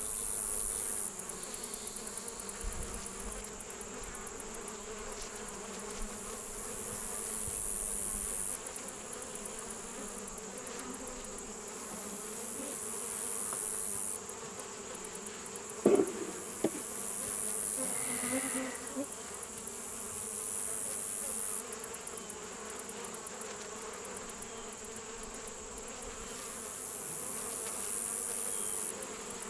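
Honeybees buzzing in a steady hum over an opened hive; the colony is agitated and defensive from the disturbance of the inspection. A single sharp knock comes about halfway through.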